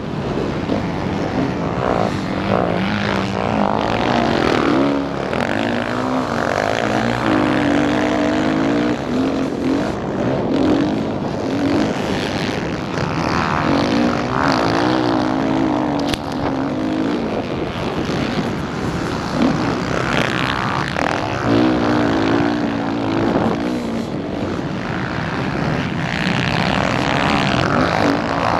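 Motocross bike engine heard close up from the bike as it is ridden, its pitch repeatedly rising and falling as the throttle opens and closes and the gears change.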